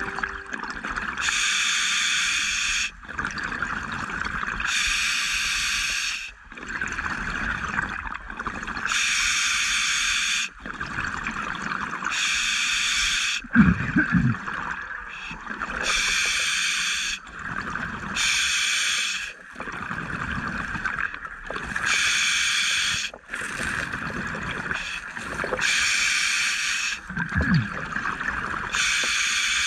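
A scuba diver breathing through a regulator underwater: a gush of exhaled bubbles about every three to four seconds, over a steady hiss. A brief low tone sounds twice, loudest near the middle.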